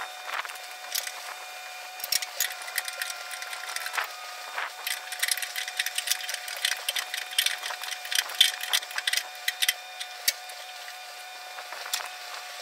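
Quick, uneven metallic clicking of hand wrenches working on a bolt while a valve is fastened back onto a hydraulic fitting, densest in the middle, over a faint steady hum.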